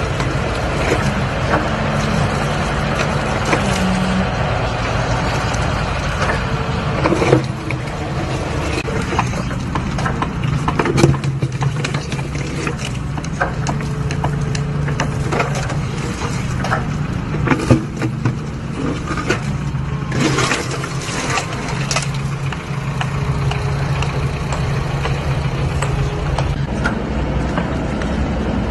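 Engine of a hydraulic pile-cutting machine running steadily, with sharp cracks and knocks now and then as it breaks off the head of a concrete pile.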